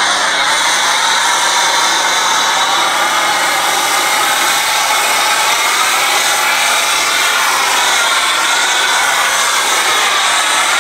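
Pressure washer foam cannon spraying soap foam in a loud, steady hiss. The hiss wavers slowly in tone as the spray sweeps across the surface.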